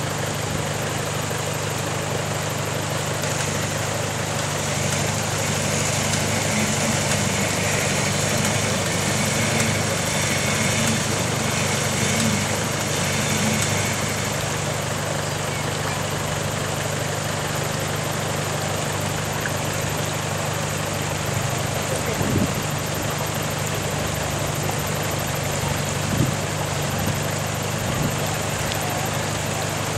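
4x4 pickup's engine idling steadily under an even hiss, with two short knocks in the second half.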